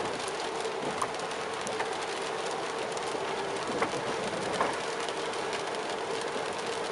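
Rain hitting a moving car's windshield and body, heard from inside the cabin over steady road noise and a faint steady hum, with a few light sharp ticks.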